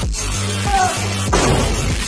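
Dubstep-style electronic music with a heavy bass line. The bass drops out for about a second, and then a loud crash-like hit comes in about a second and a half in and dies away.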